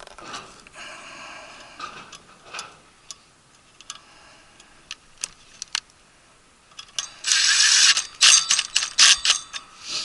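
Small screws and sheet-metal furnace parts being handled and swapped by hand: scattered light clicks and taps, then a louder stretch of rapid rattling and clicking about seven seconds in that lasts a couple of seconds.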